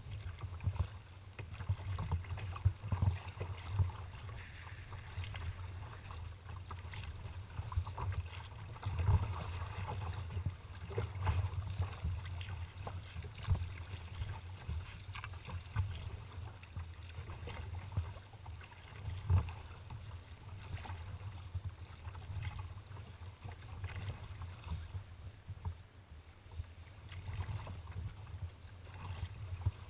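Choppy water slapping and splashing against a kayak's hull, with wind rumbling on the microphone. Irregular splashes sound throughout, none standing out much above the rest.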